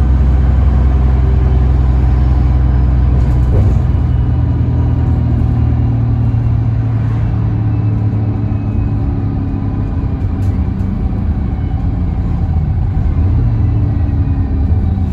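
ADL Enviro 300 single-deck bus's rear-mounted diesel engine running under way, heard from the back of the saloon. The engine note changes about three and a half seconds in, then the engine eases off and picks up again near the end.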